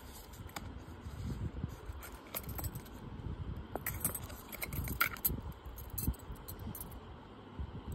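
Silver bangles clinking and jingling against each other as they are handled and lifted out of a jewellery box, with light clicks and rustling from the box and fingers. The brightest metallic clinks come about four to five seconds in.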